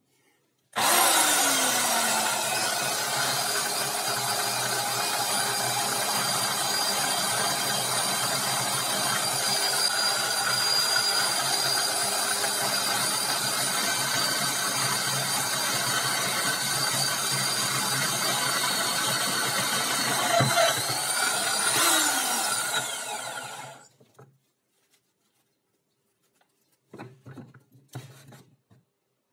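Angle grinder running steadily at full speed, grinding a clamped steel rod into a homemade pocket-hole drill bit, then winding down with a falling whine when switched off. A few short bursts from a cordless drill follow near the end.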